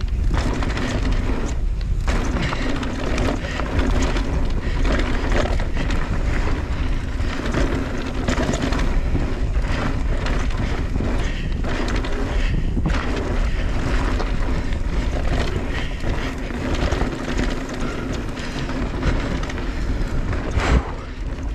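Mountain e-bike riding fast down a dirt trail: tyres rolling over dirt with the bike rattling and knocking over bumps, under heavy wind buffeting on the microphone. A hard thump comes near the end, as from a landing or a big hit.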